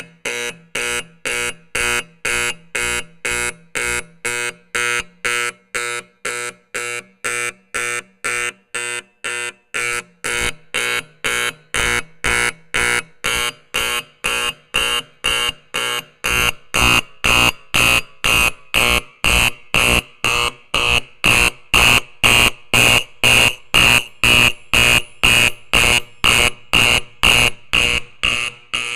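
Edwards 876-G5 electromechanical fire alarm horn sounding in even pulsed blasts, about two a second. It gets louder a little over halfway through as its volume screw is adjusted.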